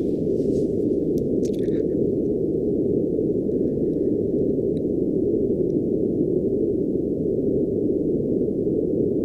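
Purple noise played as a steady, deep, muffled rushing noise with no high hiss at all, like being underwater.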